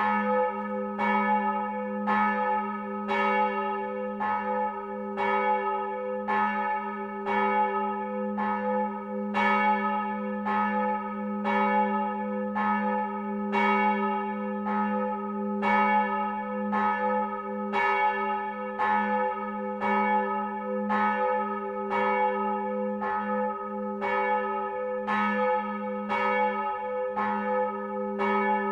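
A large church bell from a seven-bell peal, swinging and ringing steadily, its clapper striking about once a second over a long humming tone.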